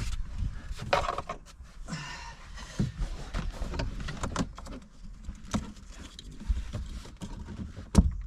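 Irregular clicks, knocks and rattles of plastic dashboard trim and parts being handled and worked loose inside a car, with the loudest knock near the end.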